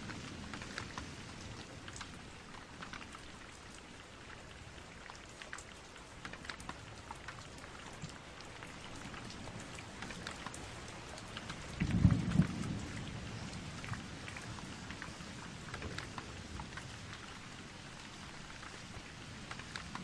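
Steady rain falling into puddles, with many single drops splashing close by. A short, loud rumble of thunder comes a little past halfway.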